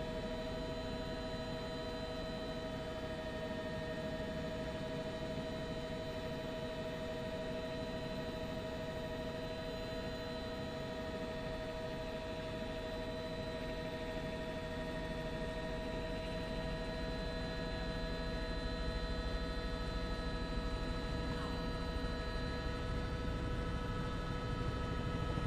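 Steady cabin hum of a news helicopter, with several held whining tones over a constant rush of noise, getting slightly louder near the end.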